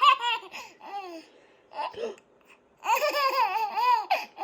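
Baby laughing and babbling in short high-pitched bursts, with a longer wavering laugh about three seconds in.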